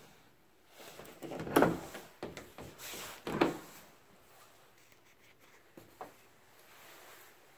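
A pair of white closet doors being pulled open: two loud bumps with a rattle, about a second and a half in and again about two seconds later, then a small click near the end.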